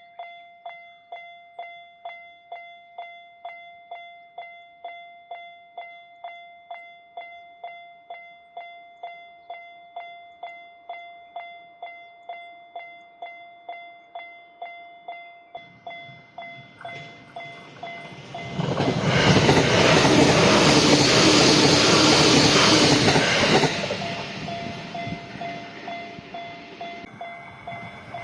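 Japanese level crossing's electronic alarm bell ringing in an even 'kan-kan' rhythm, about two and a half strikes a second. About sixteen seconds in, a JR Sobu Line train approaches, runs loudly through the crossing from about eighteen to twenty-three seconds, then eases off while the bell keeps ringing.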